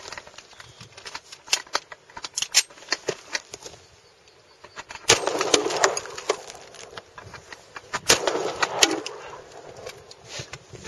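Two gunshots about three seconds apart hitting a porcelain toilet and knocking off its plastic seat and lid. Each shot is followed by about a second of clattering debris.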